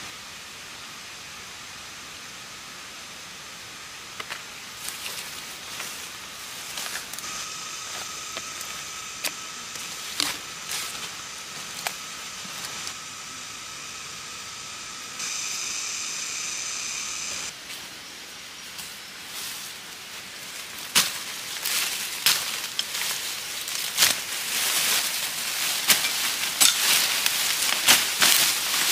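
Steady outdoor hiss, with a steady high-pitched buzz joining for about ten seconds in the middle. In the last third, loud rustling of fern fronds and undergrowth with many sharp snaps and clicks as someone pushes through and handles the plants.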